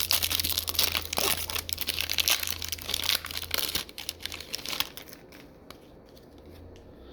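Plastic wrapper of a trading card pack crinkling and being torn open, a dense run of crackles that dies down about five seconds in.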